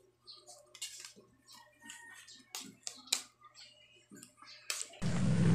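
Scattered light clicks and scrapes of a metal spoon against a plate of rice, with small eating noises. Near the end a loud rushing noise sets in.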